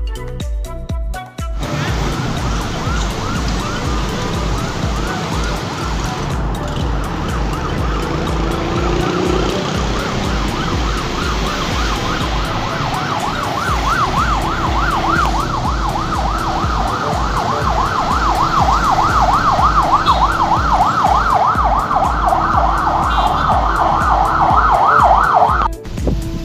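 Emergency-vehicle siren in a fast yelp, warbling up and down several times a second over the hum of heavy city traffic. It comes in about a second and a half in, grows louder, and cuts off abruptly near the end.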